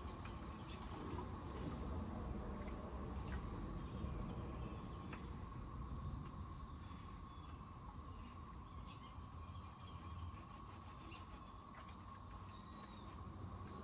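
Insects chirping in a steady, evenly pulsing chorus over a low rustle, with a few faint clicks.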